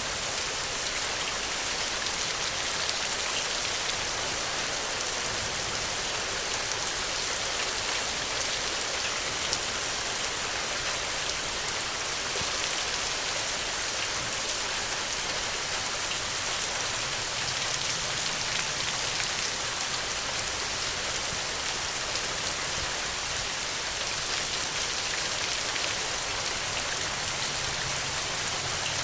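Steady rain falling, a dense even hiss of many fine drop ticks on a surface.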